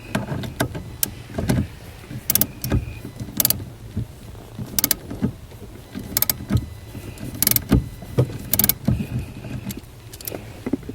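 A series of irregular mechanical clunks and clicks, roughly one or two a second, each a short sharp knock.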